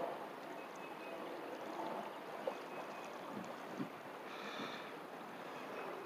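Faint steady outdoor background hiss, with a few soft clicks in the middle and a brief faint high-pitched sound about four and a half seconds in.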